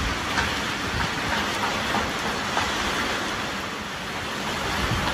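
Heavy rain falling steadily, an even hiss with scattered drops ticking.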